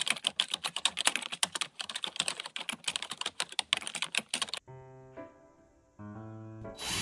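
Typing sound effect: a rapid run of keyboard key clicks that stops about four and a half seconds in, followed by soft music.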